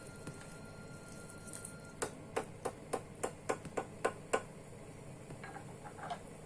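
A run of about nine sharp clicks, evenly spaced at about four a second, followed by a few fainter clicks.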